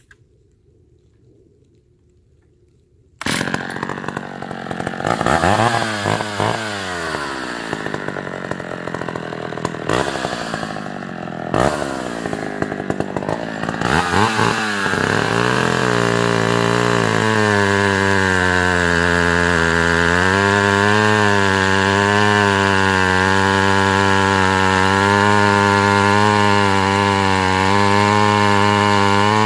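Vintage Sears D-44 70 cc two-stroke chainsaw starting abruptly about three seconds in and being revved up and down several times. From about halfway it is held at a steady high speed, wavering slightly under load as the 20-inch semi-chisel chain cuts into maple.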